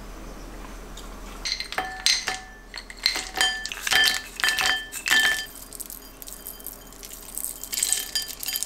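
Frozen blueberries and nuts dropping into a stoneware bowl: a run of sharp clinks, each with a short ring from the bowl, starting about a second and a half in. A denser scatter of small pieces lands near the end.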